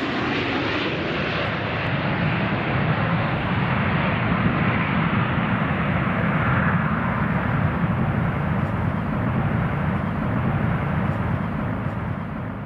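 Gulfstream G650 business jet's twin Rolls-Royce BR725 turbofans running at taxi power, a steady jet rush that swells slightly mid-way and eases near the end.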